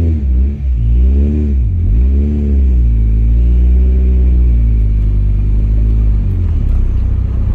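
Honda Prelude's H22A 2.2-litre VTEC four-cylinder pulling away in fifth gear on a slipped clutch. The revs rise and dip a few times in the first seconds, then settle into a steady, low drone as the engine labours at low revs without stalling.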